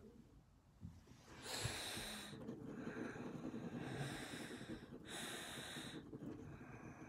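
Pencil scratching on drawing paper, with about three breaths through the nose close to the microphone, each about a second long. The breaths are the loudest part.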